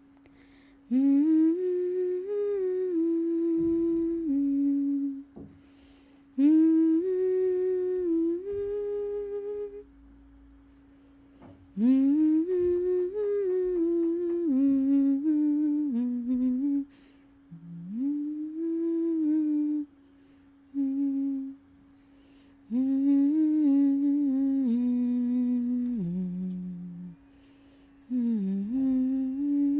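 A person humming a slow melody in phrases a few seconds long, with short pauses between them, over a faint steady held tone.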